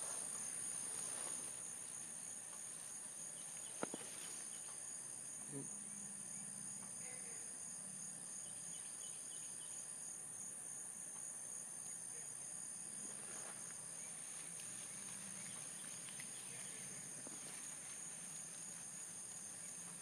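Steady high-pitched insect chorus: one continuous drone with a second, pulsing trill just below it. A single sharp click about four seconds in.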